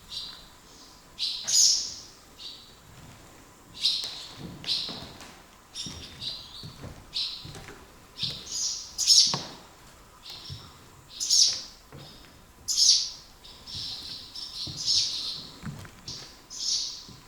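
Swallows chirping again and again, many short, sharp calls in an irregular string, some of them loud.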